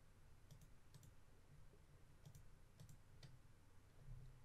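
Faint computer mouse clicks, a handful of them, some in quick pairs, over near-silent room tone.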